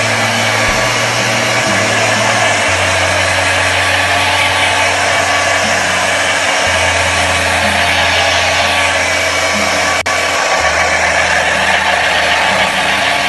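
Handheld hair dryer blowing steadily, a loud rushing of air with a brief break about ten seconds in.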